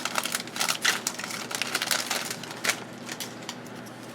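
Plastic trading-card pack wrappers crinkling and crackling in quick, dense clicks as packs are torn open and handled, dying down after about two and a half seconds.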